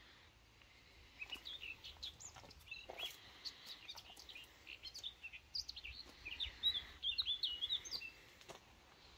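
Small birds chirping and twittering in rapid short calls, busiest from about a second in until near the end, with a few soft clicks.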